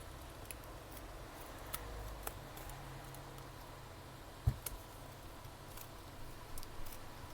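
Faint scattered clicks and taps of a pry tool working the cracked digitiser glass off a Samsung Galaxy tablet, with one sharper knock about halfway through, over a faint low hum.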